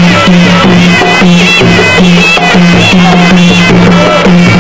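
Traditional Khmer boxing music: a shrill reed pipe playing a wavering melody over a steady, evenly pulsing drum beat.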